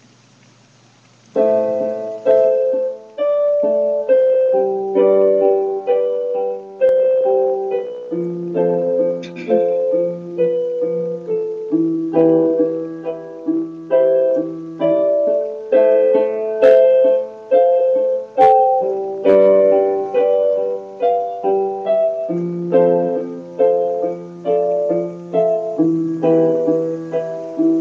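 Portable electronic keyboard played with both hands, sounding a piano voice: a melody over repeated chords, starting about a second and a half in.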